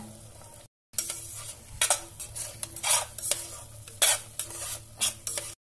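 Spoon stirring and scraping thick masala paste and desiccated coconut around a stainless steel pot in about seven uneven strokes, over a faint sizzle of the paste frying in oil.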